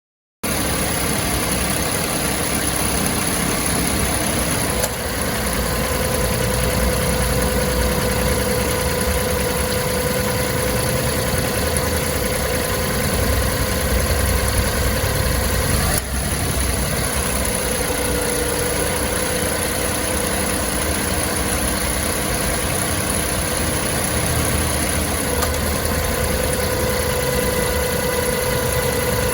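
Mitsubishi eK Wagon's small three-cylinder engine idling with an abnormal noise from the accessory belt drive. Its steady tone changes with a faint click about five seconds in and again around sixteen seconds in. The noise comes from a weak tensioner pulley that lets the belt flap and thrash when the air-conditioning compressor is engaged.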